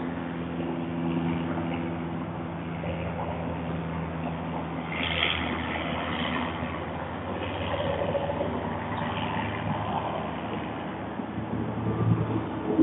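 A motor engine running steadily as a low hum with several held tones, shifting to a lower hum about four to five seconds in.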